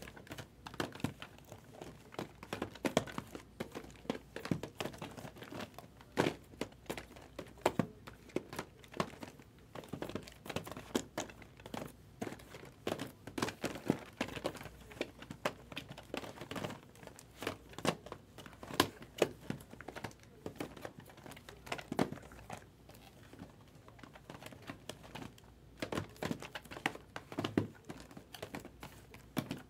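Plastic-wrapped cardboard hobby boxes being shuffled and restacked: the shrink wrap crinkling, with irregular knocks and scrapes as the boxes are slid and set down.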